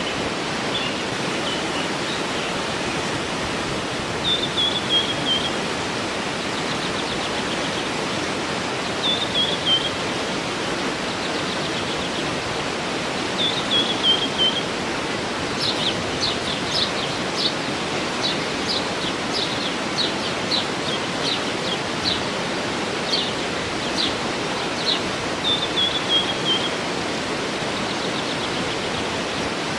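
Steady rush of a waterfall with birds singing over it. One bird repeats a short falling phrase every few seconds, and in the middle stretch another gives a run of sharp chirps, roughly two a second.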